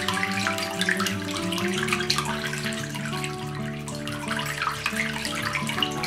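Water trickling and splashing down a small cement tabletop fountain, under background music.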